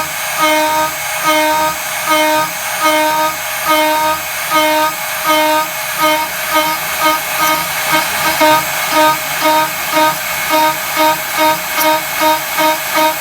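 CNC spindle cutting aluminium with an 8 mm two-flute end mill at full 15 mm depth and 1 mm stepover, a high-pitched singing tone at the spindle speed. The tone swells and fades in a regular rhythm as the cutter engages and leaves the cut, quickening past the middle.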